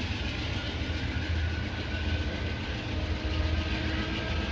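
Amtrak P42DC diesel-electric locomotive's engine working under power as it pulls its train away, a steady low rumble over a broad wash of train noise.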